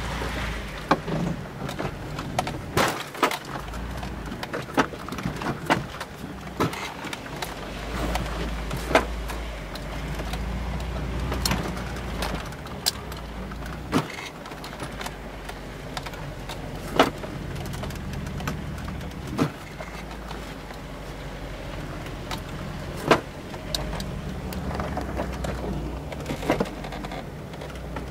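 VW T3 Syncro van driving slowly over rough off-road ground: the engine runs at low revs, rising and easing, under a stream of irregular sharp knocks and rattles from the body.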